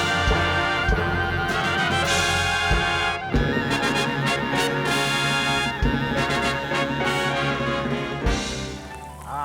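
Orchestral music with prominent brass, trumpets and trombones playing sustained chords, punctuated by drum hits.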